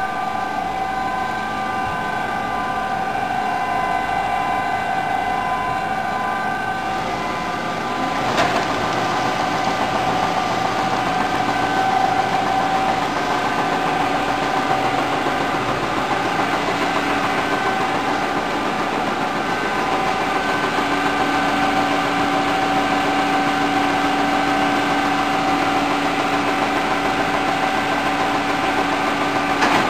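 Microplex F60 continuous-form printer running as it feeds fanfold paper: a steady mechanical whir with several held tones over it. There is a sharp click about a third of the way in, and a lower hum joins later on.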